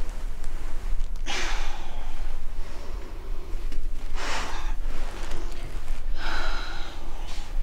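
A woman breathing heavily and audibly in distress: several long, noisy breaths a couple of seconds apart, over a steady low hum.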